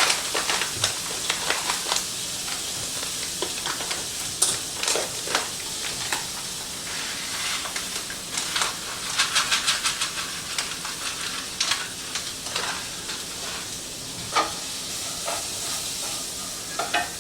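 Steady sizzle of onions and bell peppers frying in a pan, with scattered clicks and scrapes of kitchen handling and a run of quick rattling about nine to ten seconds in.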